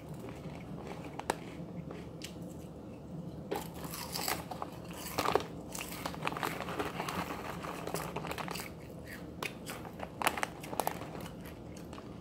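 Kettle-cooked potato chips crunching as they are bitten and chewed, mixed with the crinkling of the chip bag: irregular crackles and snaps throughout.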